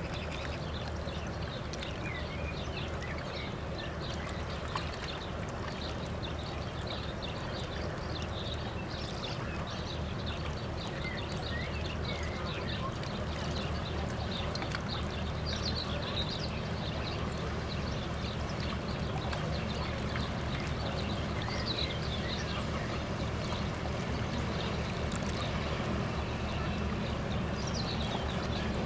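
Passing cargo ship: a steady low engine drone with the wash of water along the hull, slowly growing louder as the ship comes closer. Many short, high bird chirps sound over it.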